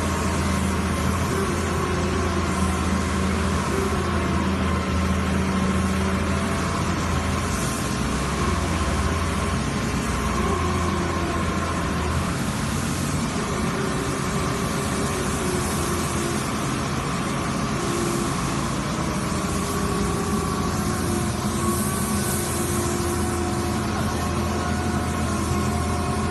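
Excavator's diesel engine and hydraulic auger drive running steadily under load as the auger bores its drill pipe down into the soil.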